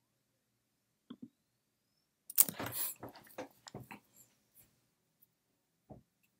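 Computer keyboard and mouse clicks: two light clicks, then a short clatter of clicks about two and a half seconds in, and a single click near the end, as a code chunk is run.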